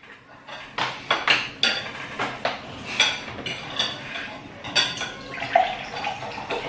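Forks clinking and scraping against dishes in quick, irregular strokes as fried rice is eaten fast.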